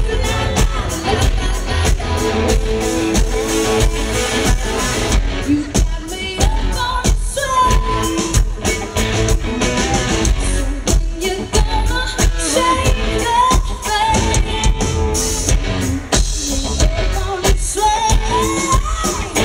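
Rock band playing live through a large PA, heard from the crowd: electric guitars, bass and drums with a steady beat, and a female lead vocal singing over it.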